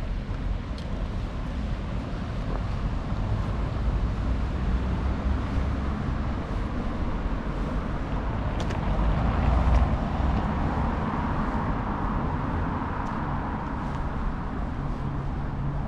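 City street traffic: a steady low rumble of motor vehicles, with one car passing close that swells and fades about nine to thirteen seconds in.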